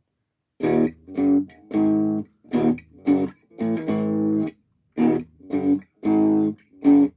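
Thomson Les Paul-style electric guitar played through its small 15-watt practice amp on the clean tone, no gain: a run of about a dozen short strummed chords, each cut off short with brief silences between.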